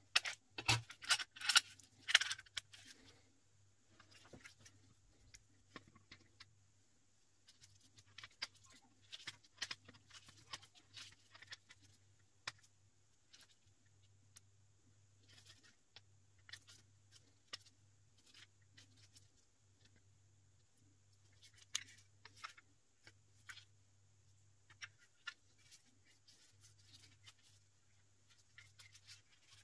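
Handling sounds of a Glock 43 pistol and a 3D-printed plastic rear sight press: a quick run of sharp metal-and-polymer clicks and rattles in the first few seconds as the pistol is handled, then scattered light clicks and scrapes as its slide is seated in the press and the tool is turned over in the hands.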